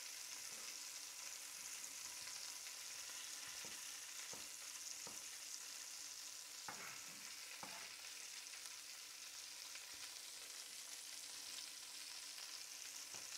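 Fresh bratwurst frying in rendered bacon fat in a stainless steel pot, a steady soft sizzle. A few faint knife taps on a wooden cutting board come through as onions are diced.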